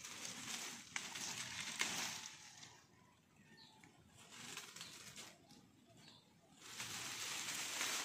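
Leaves and vines rustling as they are pushed and handled, in three bursts, with a couple of sharp snaps in the first two seconds.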